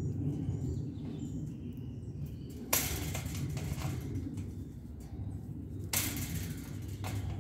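A woodpecker drumming on wood in two bursts, a short one about three seconds in and a longer one of about a second near six seconds in, over a steady low rumble.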